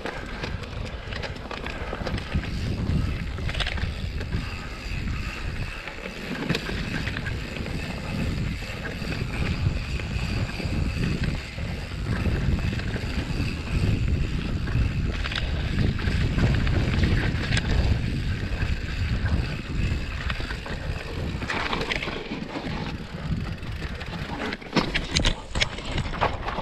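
Mountain bike descending a loose dirt singletrack: wind rushing over the camera microphone and tyre rumble on the dirt, with the chain and bike rattling over roots and rocks. A cluster of sharp knocks comes near the end.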